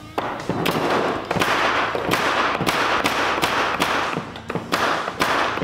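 A Bostitch pneumatic framing nailer dry-firing with no nails, over and over at about three shots a second. Each shot is a sharp snap trailed by a short rush of air. It is cycling freely now that the rear cap and its O-rings have been cleaned and lubricated; before that it would barely fire.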